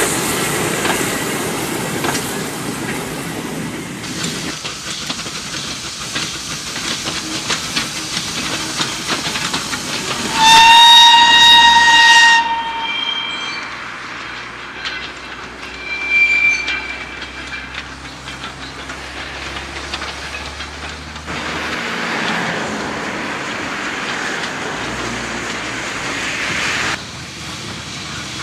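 Goods wagons and a brake van hauled by a Lancashire & Yorkshire Railway 'Pug' 0-4-0 saddle-tank steam locomotive roll past, wheels clicking over the rail joints. About ten seconds in comes a loud steam whistle blast lasting about two seconds, then a shorter, higher tone twice. Later there are several seconds of steam hissing from the engine.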